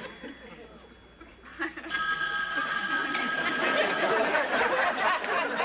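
Telephone bell ringing, one ring of about two seconds starting about two seconds in, followed by a rough wash of noise.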